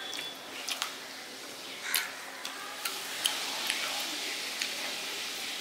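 Close-miked eating sounds: a person chewing rice and tilapia in mustard sauce, with scattered irregular wet clicks and smacks over a faint hiss.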